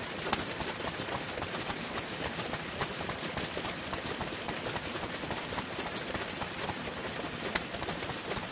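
Several vintage Japanese single-cylinder stationary kerosene engines running together, their exhaust pops overlapping into an irregular chuffing of several beats a second.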